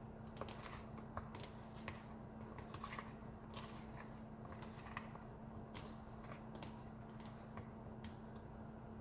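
Fingers working food by hand in a small plastic bowl: scattered, irregular small clicks and scrapes against the plastic, over a steady low hum.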